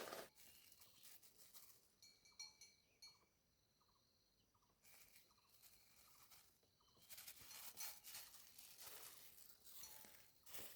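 Near silence, with faint rustling and a few faint, short, high chirps.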